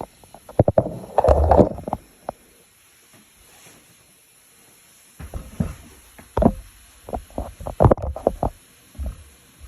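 Gusts of wind buffeting the microphone: irregular rumbling blasts in two spells, with sharp pops among them.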